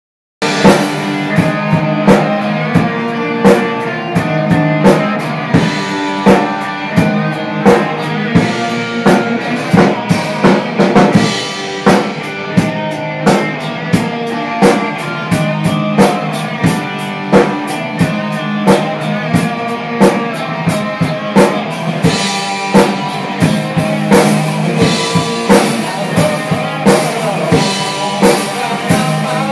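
A band playing: a drum kit keeping a steady beat under sustained guitar notes.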